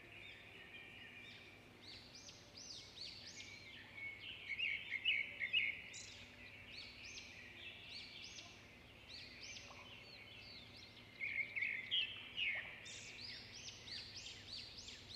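Small birds chirping, quick rising-and-falling notes in clusters that are busiest about five seconds in and again near the end.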